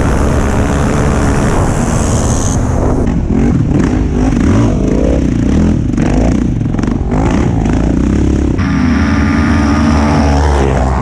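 Sport quad engines running at high revs, heard from a camera on a moving quad. The pitch rises and falls as the riders throttle and shift. The sound changes abruptly about two and a half seconds in and again near the end.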